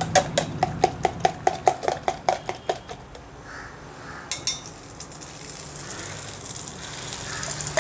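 A metal spoon clinking rapidly against a steel bowl, about five strokes a second, as egg and Maggi noodle batter is beaten. After a pause there is a single tap, then egg sizzling as it hits the hot iron tawa, growing louder near the end.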